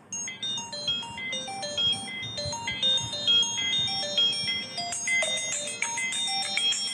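A Nokia Asha 303 ringtone: a melody of short, quick electronic notes that begins just as the previous tone ends and becomes fuller about five seconds in.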